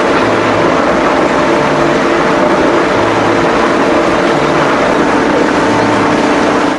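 Loud, steady machine noise of a roadheader's engine and cutting head at work, an even rush with no clear rhythm, that cuts off abruptly at the end; a music track plays faintly beneath it.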